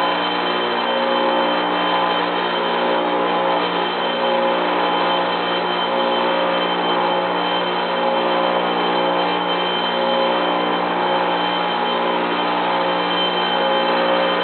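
Bench grinder running steadily while a small metal pulley adapter is held to the wheel to grind a little more off it, a steady motor hum under continuous grinding noise.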